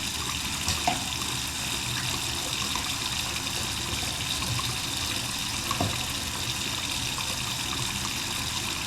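Water running steadily from a faucet into a sink, with a couple of faint knocks.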